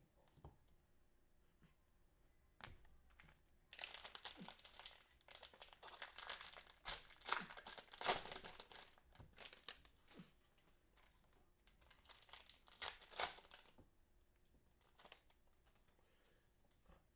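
Crinkling and tearing of the cellophane wrapper on a trading-card cello pack being opened, in two stretches of about six and three seconds after a few quiet seconds with a single click.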